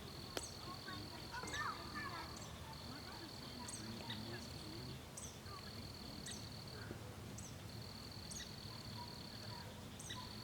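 Outdoor ambience by a campfire: a high, steady trill repeating in stretches of one to two seconds, with short high chirps about once a second. Now and then the fire gives a sharp crackle, loudest about half a second in.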